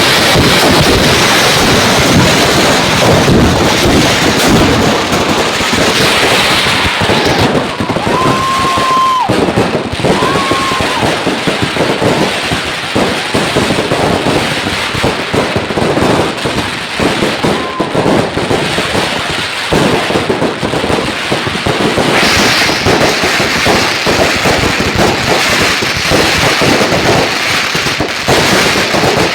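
Firecrackers and fireworks going off in a loud, dense, continuous crackle of rapid bangs, with a few short whistles partway through.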